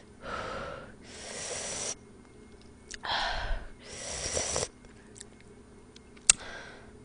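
A woman breathing hard in and out through her mouth, four hissing breaths in two pairs, from a mouth burning with very spicy fire noodles. A single sharp click about six seconds in.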